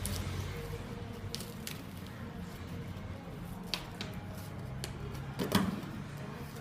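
Packaging being handled while unboxing a microwave: scattered crackles and clicks, the loudest a short cluster about five and a half seconds in.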